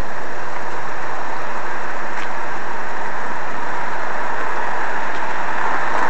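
Steady road traffic noise: a loud, even rush of passing vehicles.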